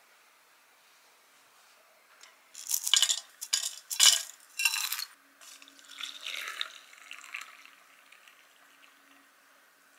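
Loose dried tea poured from a tin into a glass teapot's infuser, rattling and pattering against the glass about two and a half to five seconds in, then hot water poured from a kettle into the teapot, a softer splashing that fades out.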